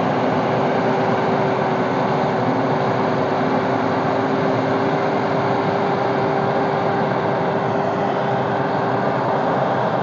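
Yanmar YH850 rice combine harvester running steadily while cutting standing rice: its 85-horsepower diesel engine and harvesting machinery make a constant drone with a steady hum.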